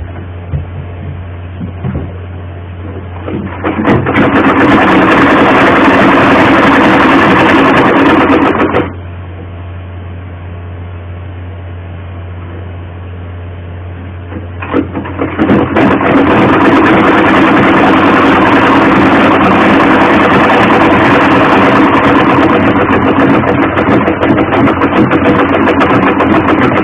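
Sewing machine stitching in two runs: the first starts about 4 seconds in and stops suddenly about 9 seconds in, and the second starts about 15 seconds in and keeps going.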